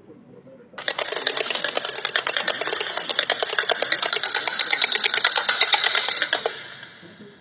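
A rapid, even rattling clatter that starts under a second in and cuts off suddenly about six and a half seconds in, trailing away briefly after.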